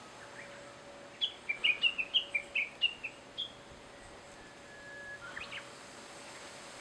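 Japanese bush warbler (uguisu) calling: a quick run of about a dozen sharp notes, then, a second later, one long held whistle that breaks into a short flourish, the bird's 'hoo-hokekyo' song.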